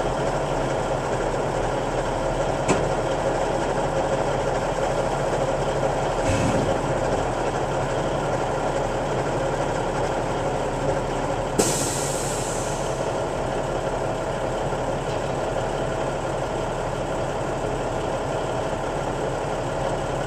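Heavy farm machinery engine running steadily, with a short hiss a little past halfway.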